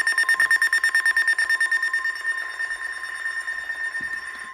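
Weather alert radio sounding its rapid high-pitched beeping alarm over the steady NOAA Weather Radio warning tone, which signals that a new warning is being broadcast. The beeping fades and stops near the end, leaving the steady tone.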